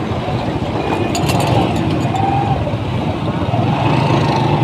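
Motorcycle running steadily while riding along a busy street, its engine rumble mixed with wind and the noise of other motorbikes close by.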